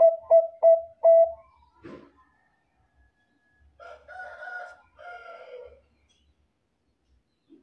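Zebra dove (Bangkok-strain perkutut) cooing: a quick run of four short, clipped coos in the first second or so ends its phrase. A soft knock comes about two seconds in, then two longer, rougher calls around four and five seconds in.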